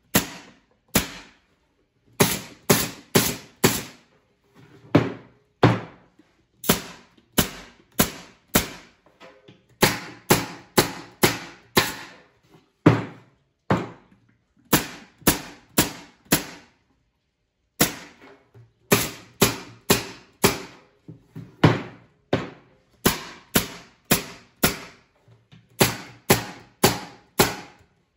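Pneumatic nail gun firing nails into the finger-jointed corners of a wooden beehive deep hive body. The sharp shots come in quick runs of three to five, with short pauses between runs.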